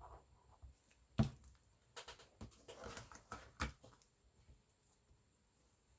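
Book covers and chipboard being handled and pressed together on a table: a few light knocks, the sharpest about a second in, and a brief rustle of paper in the middle.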